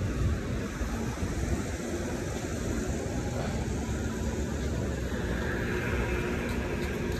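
Steady low rumble of road traffic, with the faint hum of vehicle engines and a swell of hiss about five seconds in.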